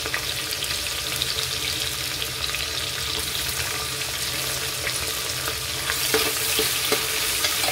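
Sliced onions sizzling and crackling in hot oil in an aluminium pressure cooker, with a steady patter of tiny pops. The sizzle grows louder about six seconds in, as a spatula starts stirring the onions through the oil.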